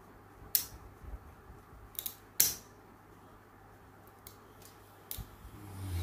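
Wire cutters snipping at a thin wire: a few sharp clicks, the loudest about two and a half seconds in. A low bump of handling comes near the end.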